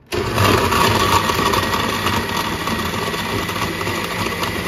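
Kitchen blender starting up abruptly and then running steadily, puréeing cooked corn.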